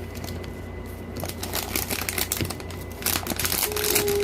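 Plastic packaging crinkling and crackling in irregular bursts as a wrapper is handled and torn open, busiest near the end. A short steady tone sounds just before the end.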